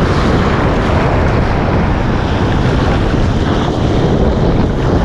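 Strong wind buffeting the microphone over a steady rush of heavy surf.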